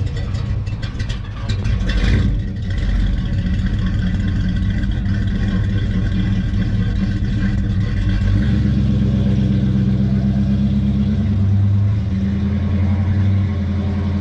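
Car engine running at idle, a steady low rumble that grows a little louder about eight seconds in. There is some brief clatter in the first two seconds.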